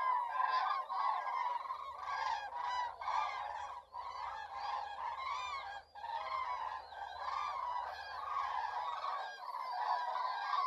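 A large flock of migrating birds calling together, with many overlapping calls forming a continuous chorus.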